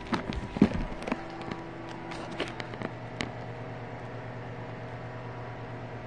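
Handling noise: a cluster of sharp clicks and knocks in the first second or so and two more a little later, over a steady low hum.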